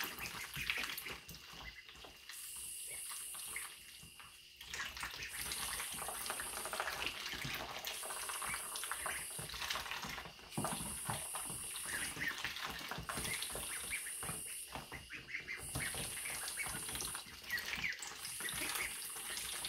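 Ducklings dabbling in a shallow bowl of watery soup, their bills working the liquid in a continuous stream of quick wet clicks and splashes.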